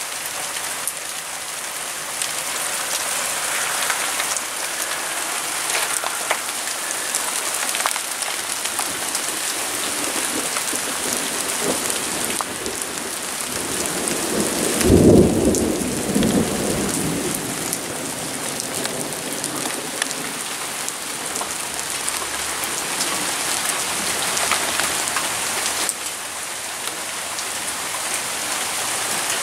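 Steady rain falling, with one low rumble of thunder about halfway through that lasts a couple of seconds.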